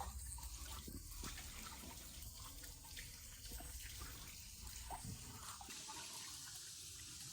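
A small stream trickling and splashing into a limestone pool, a faint steady babble with small drips.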